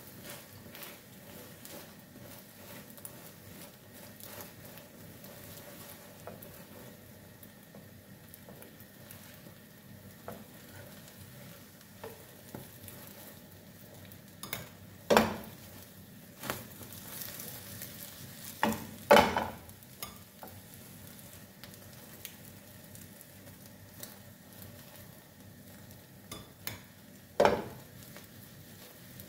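Omelette frying in a non-stick pan with a steady faint sizzle, broken by a few loud knocks and scrapes of the spatula and pan, two around the middle and one near the end.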